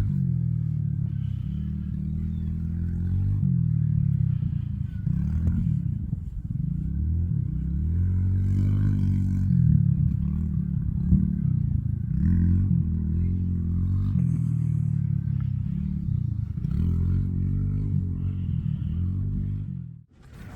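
An engine running, its speed rising and falling over and over, cutting off suddenly near the end.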